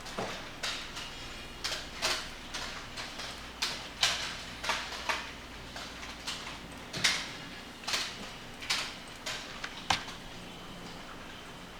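Computer keyboard and mouse clicking at an irregular pace, roughly one or two sharp clicks a second, dying out about ten seconds in.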